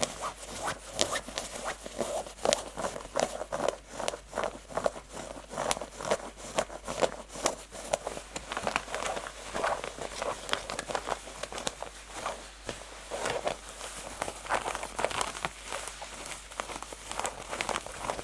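Natural fingernails scratching rough, textured denim fast and hard, in quick irregular strokes of scratchy rasping.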